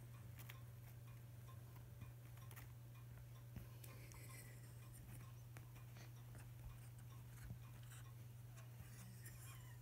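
Near silence over a steady low hum, with faint scattered ticks and taps as a cat paws at a smartphone screen.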